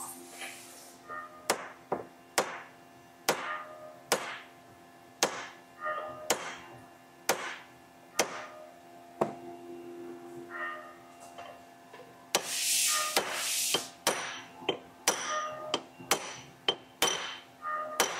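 Hammer blows on a carbon-fibre-wrapped steel rifle barrel held in a bench vise, striking the thin carbon layer to test its bond to the steel liner. Sharp single strikes come about a second apart at first. A stretch of scraping noise follows past the middle, then quicker blows, two or three a second, near the end.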